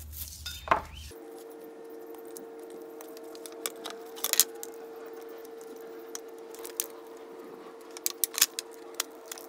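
Razor knife cutting into a black plastic trim panel to open the speed-tie cut-out: sharp clicks and scrapes of blade on plastic around four seconds in and a cluster near the end, over a steady faint hum.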